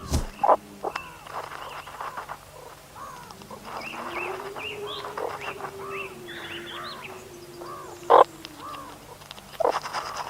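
Meerkats calling: many short, overlapping chirps, with a few louder sharp calls, the loudest about eight seconds in.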